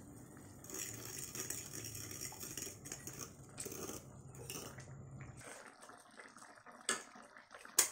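A metal spoon scrapes and clinks against a ceramic bowl and a stainless steel pan as flour slurry is poured and stirred into a simmering sauce to thicken it. There is a soft liquid stirring noise, then a few sharp clinks, one of them near the end.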